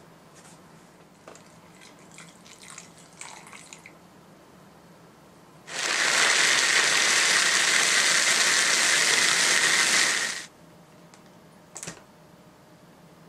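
A récolte electric food chopper's motor running for about five seconds, blending milk and ingredients into a frappé-style drink: a steady, loud whirr with a high tone that starts and stops abruptly. Before it come faint dribbles and light clicks as the pour ends and the motor head is fitted, and a single sharp click near the end.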